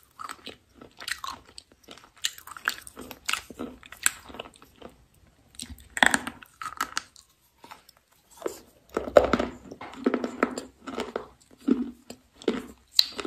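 Close-miked biting and crunching of hard, pale pinkish slabs, with chewing between bites. The loudest crunches come about six and nine seconds in.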